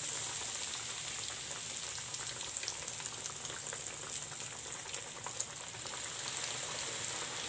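Breadcrumb-coated chicken cutlets deep-frying in a pan of hot oil: a steady sizzle with many small crackles and pops.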